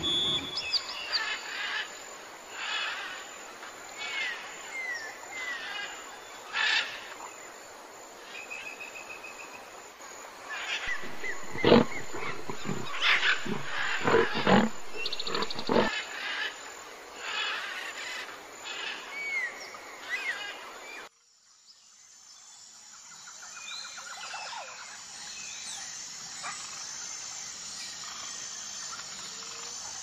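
The end of a tiger's roar in the first moment, then outdoor ambience with birds chirping and calling and a series of louder sharp calls in the middle. After a sudden cut about two-thirds of the way through, a quieter background with an insect chirping in an even rhythm.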